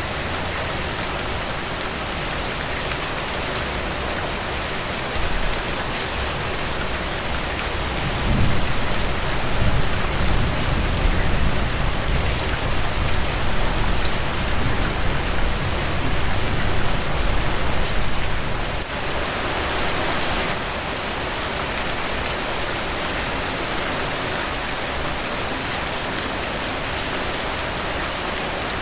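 Steady rain falling on leaves, an even hiss with many small drop ticks. From about eight seconds in, a low rumble swells under the rain for some ten seconds, then fades.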